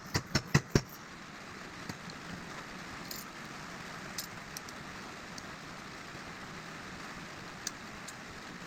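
A quick run of five sharp clicks in the first second, the loudest sounds here, typical of metal parts and tools being handled while reassembling a motorcycle's front fork. Then a steady faint hiss with a few small ticks.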